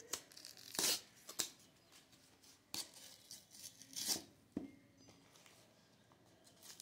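Paper and cardboard phone packaging being torn and handled, in a handful of short rustling, tearing bursts, with a light knock about two-thirds of the way through.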